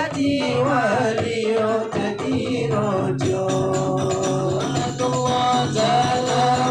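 A male group sings sholawat, Islamic devotional songs, into microphones, with held notes from about three seconds in. Rebana frame drums beat a rhythm under the voices, and the drum strokes come thicker in the second half.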